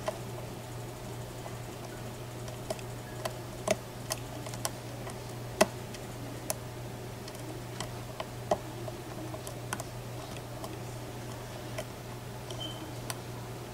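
Irregular light metallic clicks and ticks of a lock pick working the pins of a Mako M2 six-pin SFIC core under tension, the pick lifting and tapping pins one at a time. A steady low hum sits underneath.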